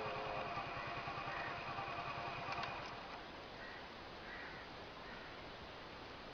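A small engine running nearby with a fast, even beat, fading out about three seconds in. After it, faint, short bird calls repeat now and then.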